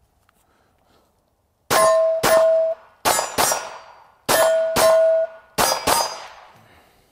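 Ruger American 9mm pistol fired eight times in four quick pairs, starting about two seconds in. Several shots are followed by the ringing clang of a struck steel target plate.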